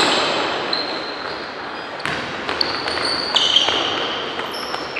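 Basketball game sounds echoing in a gym hall: sneakers squeaking on the court and a ball bouncing, over a general hum of players and spectators.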